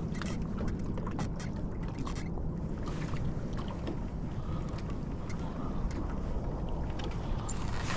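Steady low rumble of wind on the microphone over a boat on choppy water, with faint scattered ticks and splashes of small waves lapping at the hull.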